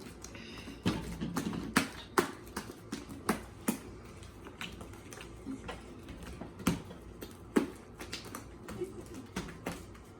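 Sticky fluffy slime of glue, shaving cream and contact-lens-solution activator being kneaded and pulled by hand, making irregular sharp clicks and wet pops.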